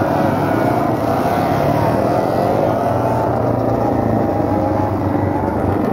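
Several vintage racing motorcycles running past together at low speed, their engine notes wavering and overlapping.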